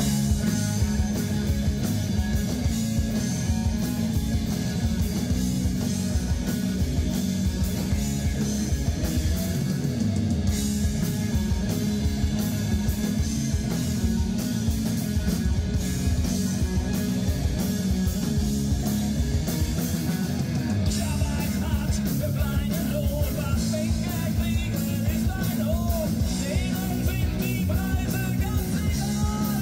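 Rock music: electric guitar and drums at a steady beat, with singing that comes through more clearly in the second half.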